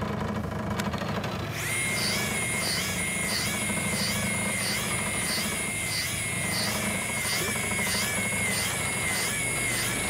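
Shimano Beast Master 1000EJ electric reel's motor switching on about a second and a half in and whining steadily as it winds in the jig during electric jigging. Its pitch wavers in a regular rhythm about twice a second as the rod is jerked.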